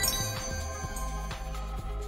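Electronic background music with a steady beat of about two strokes a second over a held bass note; a ringing chime tail fades out in the first half second.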